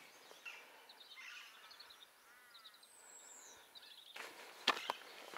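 Faint outdoor birdsong: small birds chirping and trilling, with a thin high whistle sliding downward about three seconds in. Footsteps on the trail come in from about four seconds in.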